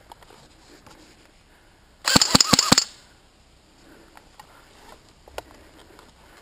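G&G TR4-18 electric airsoft rifle firing a quick burst of about six shots, lasting under a second, about two seconds in.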